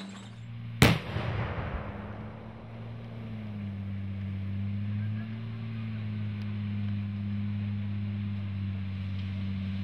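A single loud, sharp bang about a second in, over a steady low droning hum that wavers slightly in pitch.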